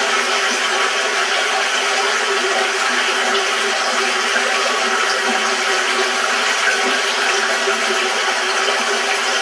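Steady rushing of water over the rocks of a fast stream, played through a TV speaker.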